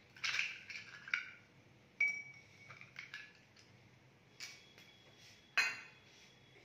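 Ice cubes dropped into drinking glasses, clinking against the glass about six times at uneven intervals. The last clink, near the end, is the loudest and leaves a brief ring.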